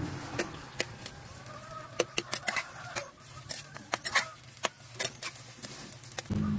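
Metal spatula clinking and scraping against a steel pan while stir-frying, in irregular sharp strikes.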